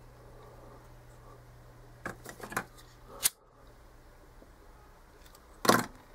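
Small tools being handled at a fly-tying vise: a quick run of light clicks about two seconds in, a sharp click a second later, and a louder clack near the end, over a steady low hum.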